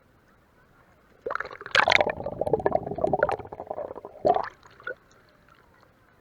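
Seawater splashing and gurgling as a swimmer dives under, starting about a second in and lasting about three seconds, with a last short splash just after.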